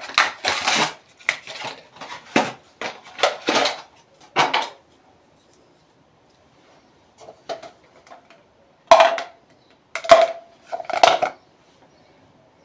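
Stiff plastic toothbrush packaging handled and opened, with a dense run of crackling and clicking for the first four seconds or so. After a pause, a few louder sharp plastic knocks with a short ring come near the end.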